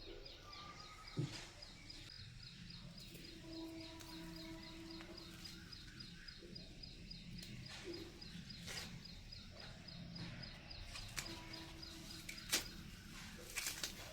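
Quiet background with a steady, high chirping that repeats evenly several times a second, broken by a few sharp clicks and short low hums.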